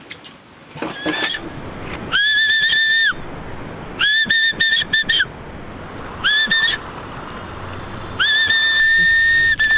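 A man whistling to call dogs: a series of about five high, steady whistle notes, each sliding up at the start, the last one the longest and dropping off at its end.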